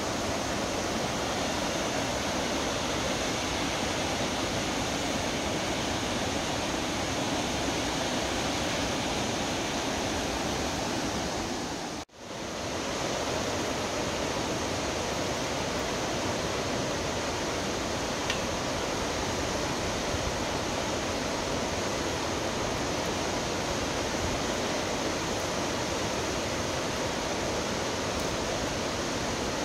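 Steady rushing of Mallalli Falls, a tall multi-tiered waterfall, heard as an even roar of falling water. It drops out for a moment about twelve seconds in, then carries on at the same level.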